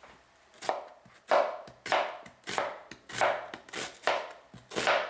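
Kitchen knife slicing a red onion on a plastic cutting board: a steady run of about eight slices, a little under two a second, each a crisp crunch through the onion ending in a knock on the board, starting about half a second in.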